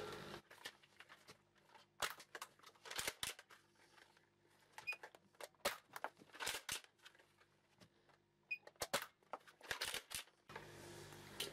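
X-Shot Insanity Berzerko foam-dart blaster being primed and fired several times through a chronograph. Each shot is a short sharp clack, coming in small groups every second or two.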